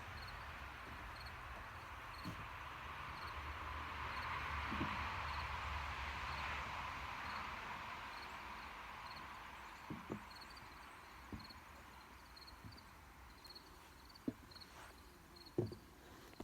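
Quiet outdoor ambience: a soft rushing hiss that swells and then fades away, with faint, evenly repeated high chirps like an insect. From about ten seconds in come a few scattered light knocks.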